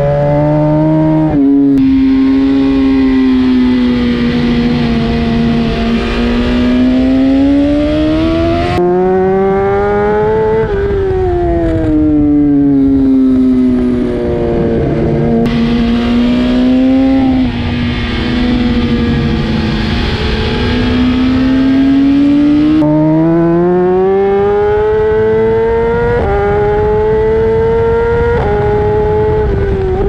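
BMW S1000RR's inline-four engine ridden hard around a race track, its revs climbing and falling several times with quick steps at gear changes. Wind rushes past throughout.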